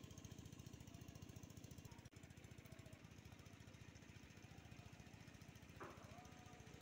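Faint, rapid low pulsing of a small engine running steadily.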